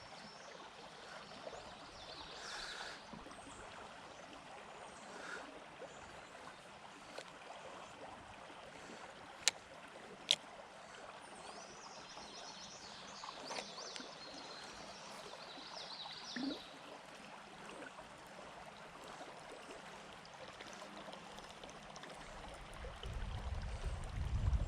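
Faint, steady sound of river water flowing, with two sharp clicks about nine and ten seconds in and a low rumble near the end.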